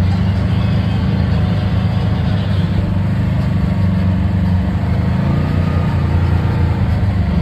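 Side-by-side UTV engine running steadily as the machine moves and turns, heard from inside the open cab.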